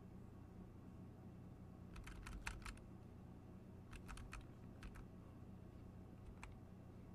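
Faint clicking of computer keyboard keys in a few short bursts, about two seconds in, around four to five seconds, and once near the end, over a low steady hum.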